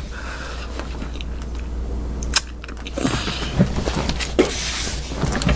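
Close-miked chewing and biting of a bar of soap: irregular clicks and crackles, mostly in the second half, with one sharp click a little before, over a steady low microphone hum.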